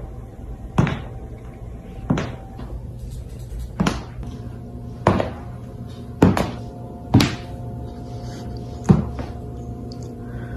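A series of sharp knocks or thuds, about eight of them at uneven gaps of one to two seconds, over a steady low hum and faint held tones.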